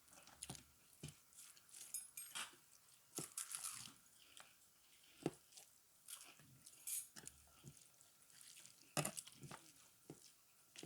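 Faint chewing and mouth smacks of someone eating rice, dal and other dishes, with short clicks scattered every second or so.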